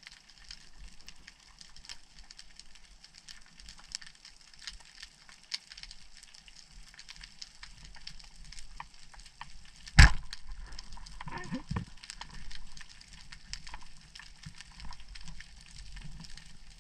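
Small band-powered den speargun firing underwater, one sharp loud snap about ten seconds in. A few short falling whines follow about a second later. A steady underwater crackle from the rocky seabed runs throughout.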